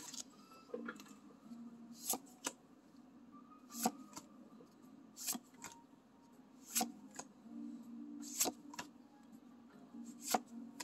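Pokémon trading cards being flipped through one at a time by hand, each card slid off the front of the stack and tucked behind with a short crisp flick, roughly every second and a half.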